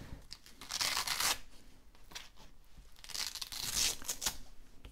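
Hook-and-loop (Velcro) brake keeper on a parachute riser being peeled open: two ripping tears, the first about a second in and the second about three seconds in.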